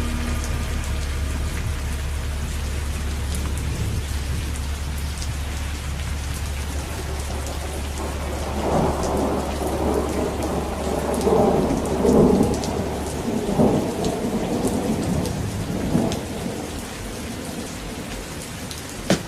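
Steady rain falling, with thunder rolling in several swells through the middle and fading away.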